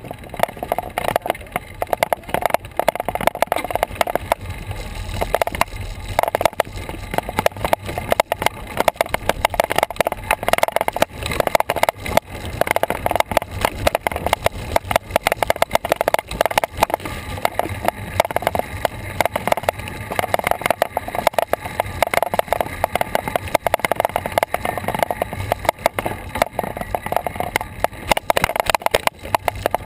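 Steady rattle and road noise of a bicycle rolling along a paved path, picked up by an action camera mounted on the bike, with dense rapid clicks and knocks throughout.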